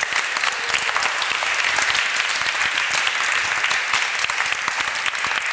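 Audience applauding: a hall full of people clapping steadily, dense and even, thinning slightly near the end.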